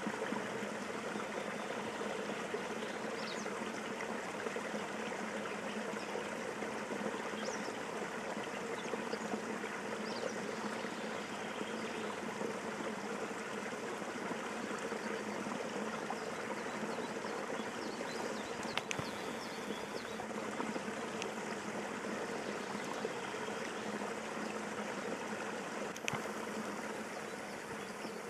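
Water trickling and running steadily through a beaver dam, an even rushing trickle with an occasional faint click.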